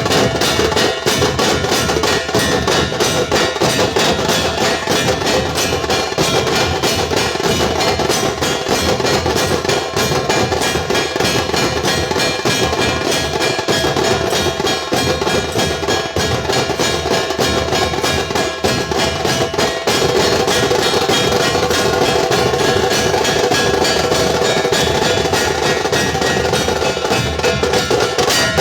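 Dhol-tasha troupe playing: rapid, continuous tasha strokes over dhol beats, loud and unbroken, with the playing swelling slightly about two-thirds of the way through.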